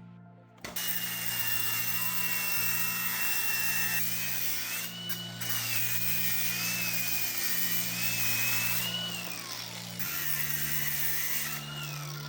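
Power tool, most likely an angle grinder, cutting into metal: a high whine over a hiss, wavering as the load changes and sagging twice near the end as the tool eases off.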